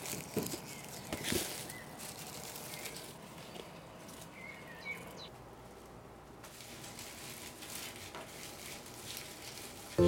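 Dry onion tops and papery onion skins rustling as harvested onions are handled in a woven basket, with a couple of sharp crackles in the first two seconds.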